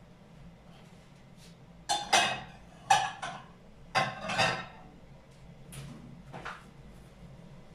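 Three short clatters of kitchenware, about a second apart, loudest in the middle of the stretch, between fainter rustling of hands working a dry, crumbly flour-and-nut mixture in a plastic bowl.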